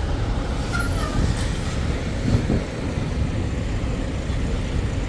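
Steady low rumble of idling diesel semi-truck engines, with a brief faint squeal about a second in.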